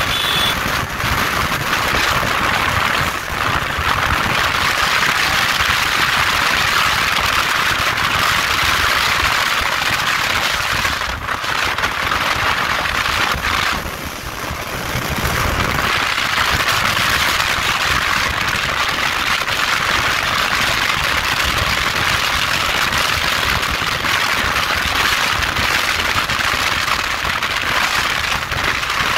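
Steady rushing wind noise on the microphone of a motorcycle riding at about 80–90 km/h, with road and engine rumble underneath; it eases briefly about halfway through.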